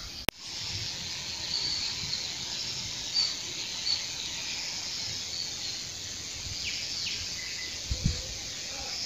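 Outdoor ambience of insects shrilling steadily in the trees, with a few short bird chirps. A sharp click comes just after the start, and a couple of soft low bumps come near the end.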